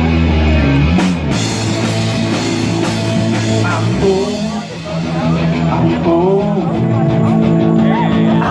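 Rock band playing an instrumental stretch: electric guitar and drums over bass, with bent, wavering guitar notes.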